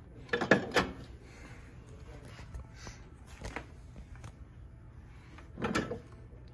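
Antique metal hand tools, among them bit braces with wooden heads, knocked and clinked as they are picked up and shifted on a wooden shelf: two sharp knocks close together just after the start, a lighter one about three and a half seconds in, and another near the end.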